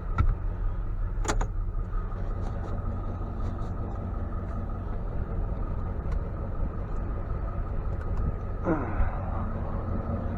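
Engine idling steadily, with a few light clicks, a brief squeak about a second in and a short squeak falling in pitch near the end.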